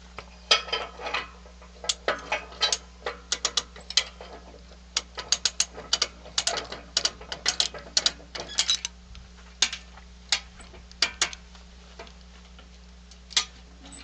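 Hand come-along ratchet being worked, its pawl clicking in quick, irregular runs, thick for most of the first nine seconds, then a few scattered clicks.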